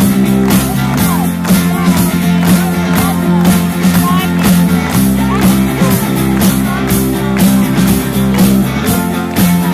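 Live rock band playing: electric guitars, bass guitar, keyboard and drum kit, with a steady drum beat under sustained bass notes that change every few seconds.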